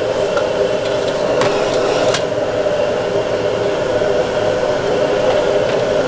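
Steady machine whirring, even in level, with a couple of faint clicks over it.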